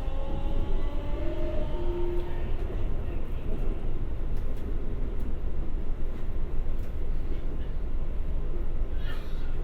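Keikyu 1000-series train with a Siemens GTO-VVVF inverter accelerating: the last rising tones of its 'doremi' inverter scale fade out in the first two seconds. Steady rolling noise with faint rail clicks follows, and a short hiss comes near the end.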